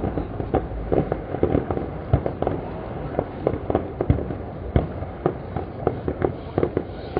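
Fireworks display: a dense, irregular string of bangs and pops, several a second.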